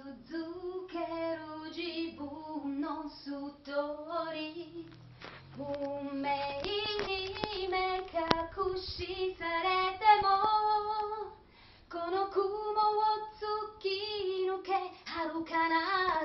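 A woman singing a Japanese anime song solo, holding long notes with a little vibrato. A few sharp clicks cut in around the middle.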